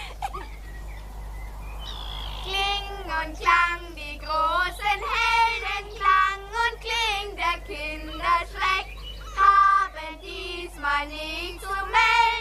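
A child's voice singing a song in long held notes with a wavering pitch, starting about two seconds in.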